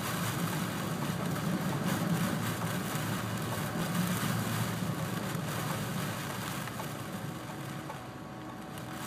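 Storm-force wind gusting over a tugboat at anchor, a broad rushing noise, over a steady low machinery hum. The wind eases a little near the end.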